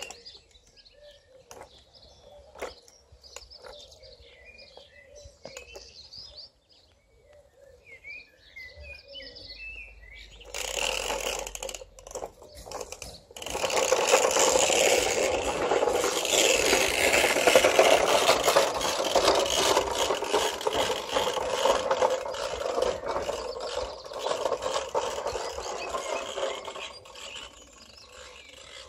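Birds chirping faintly, then, about ten seconds in, a plastic toy lawnmower rattling loudly and steadily as it is pushed over a cobblestone path, stopping shortly before the end.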